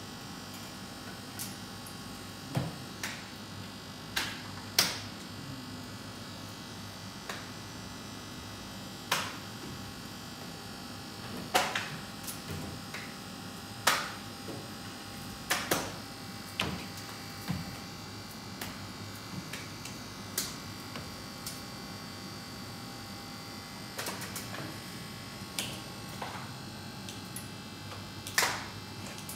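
Sculpting tool scraping and cutting into clay in short, irregular strokes, each a brief sharp scrape, over a steady faint electrical hum.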